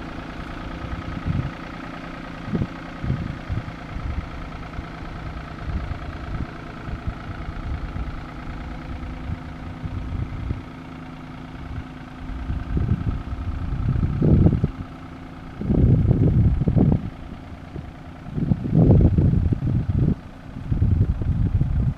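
Farm tractor's diesel engine running steadily. From about halfway on, loud irregular low rumbling blasts come in over it, several in a row.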